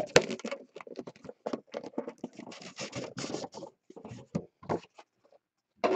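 Hands handling a red Immaculate Football trading-card box on a tabletop: a run of small, irregular taps, scrapes and rustles as the box is turned and slid about. The handling noise is faint, with a last tap near the end.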